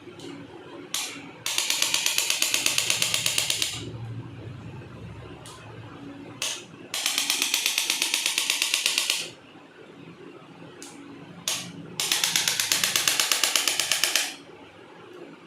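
A handheld percussive device tapping rapidly, about ten even taps a second, in three bursts of about two seconds each, each burst preceded by a single sharp click.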